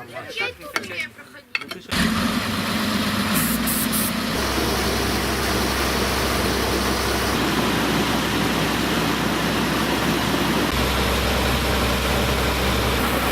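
Tractor engine starting up about two seconds in and then running steadily at a loud, even level, after brief voices.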